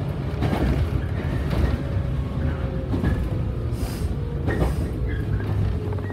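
115-series electric train running, heard inside the passenger car: a continuous low rumble of the wheels on the rails with several irregular sharp clacks from the track, and a faint steady motor hum.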